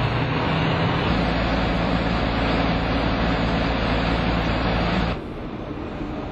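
MAN truck running on a roller dynamometer test stand, its engine and drive wheels turning the rollers at about 23 km/h in a steady drone with a hiss. About five seconds in it cuts off suddenly to a quieter steady hum.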